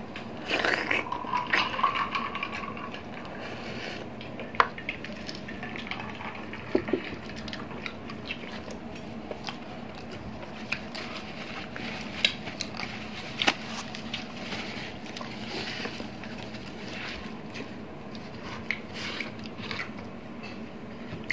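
Eating and handling balut (fertilised duck eggs): soft wet mouth sounds and shell handling, with scattered sharp clicks of eggshell being peeled and a spoon against a bowl. It is busiest in the first few seconds.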